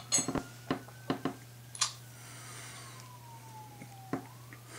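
A siren wailing faintly in the background, its pitch slowly rising and falling about once every four to five seconds. A few sharp clicks and taps come in the first two seconds, louder than the siren.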